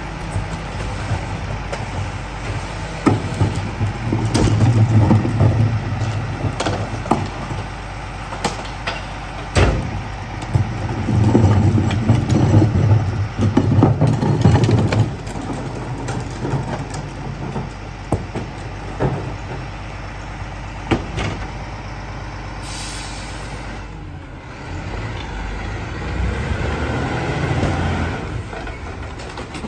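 Rear-loader garbage truck idling while trash carts are tipped into its hopper, with repeated clanks and thuds. Twice the engine revs up under load with a loud clatter, as the packer cycles. About three-quarters through there is a short hiss of air, and then the engine rises as the truck moves on.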